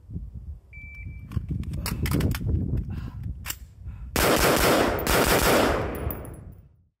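A short beep, then a quick string of shots from an 11.5-inch 5.56 rifle, followed by about two seconds of loud rushing noise that fades away.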